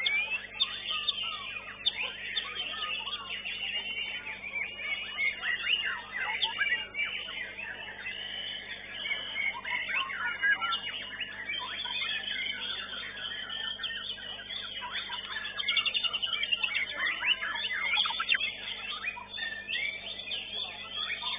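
White-rumped shamas (murai batu) singing in competition, many birds at once: a dense, continuous mix of whistles, chirps and trills.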